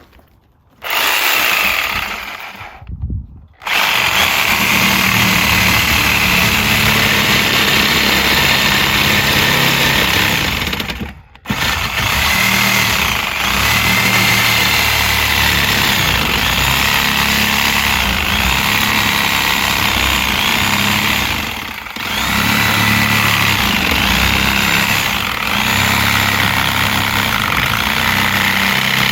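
Sawzall reciprocating saw cutting through an old rubber tire on a split-rim wheel, running loud in long stretches. It stops briefly about three seconds in and again about eleven seconds in, and eases off for a moment around twenty-two seconds.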